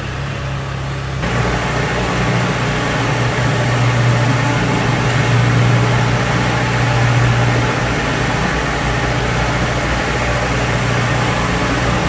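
Kubota DC70 combine harvester's diesel engine running steadily, growing louder and busier about a second in.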